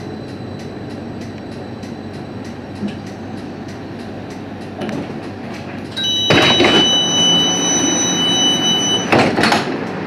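Inside a CAF Urbos 3 tram's driver's cab, a steady low rumble while the tram creeps forward. About six seconds in, a much louder sound starts with a rush of noise and holds a steady high-pitched tone for about three seconds, then stops with another rush.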